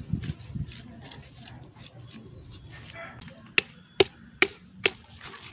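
Four sharp chopping blows of a large knife into a singed goat's head, about half a second apart, in the second half. Before them come quieter scraping and rustling sounds.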